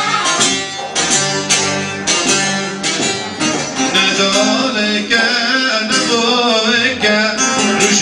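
Live folk music: a bağlama (long-necked saz) plucked along with a Korg Pa arranger keyboard playing the tune.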